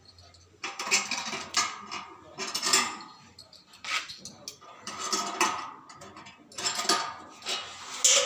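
Metal clinking and scraping of a spanner on the bolts of a satellite dish's steel LNB arm bracket, in irregular bursts about every second.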